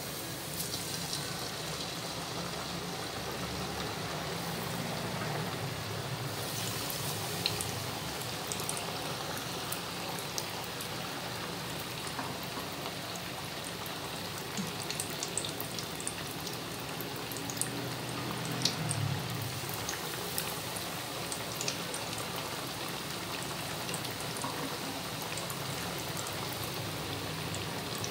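Flour-coated chicken strips deep-frying in hot oil in a karahi: a steady sizzle with many small pops and crackles.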